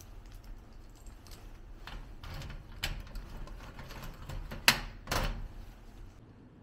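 A few handling clicks and knocks, the sharpest about three-quarters of the way through, followed by a short scrape, over a low steady hum.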